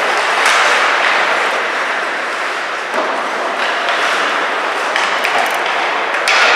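Ice hockey play in an arena: a steady hiss of skates on the ice and rink noise, with a few sharp clacks and knocks of sticks and puck, the strongest near the end.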